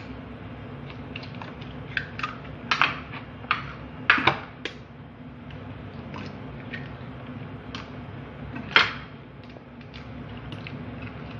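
Eggs being cracked into a plastic mixing bowl: a string of sharp taps and shell cracks, loudest about four seconds in and again near nine seconds, over a steady low hum.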